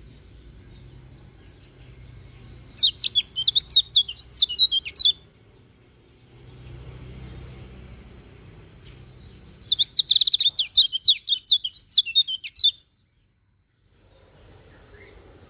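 Kecial kuning white-eye singing: two quick bursts of rapid, high, twittering chirps, each about two to three seconds long, the second starting about ten seconds in, over a faint low background hum.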